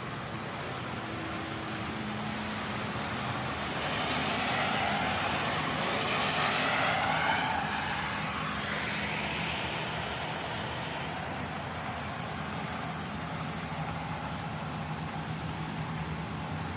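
A car passing by on a rain-wet road: tyre and engine noise swells to a peak about seven seconds in, falls in pitch and fades. A steady low traffic hum runs underneath.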